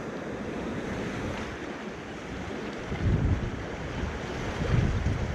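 Sea surf washing against the rocks, with wind buffeting the microphone; the low rumble swells up twice, about three seconds in and again near the end.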